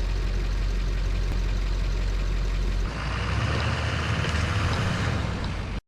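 A truck engine running steadily with a deep, even hum. About three seconds in the sound changes, and a hiss rises over a lower engine rumble until it cuts off abruptly.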